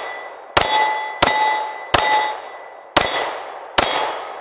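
Springfield Armory EMP4 9mm pistol fired five times in quick succession. Each shot is followed by the ringing clang of a steel target being hit.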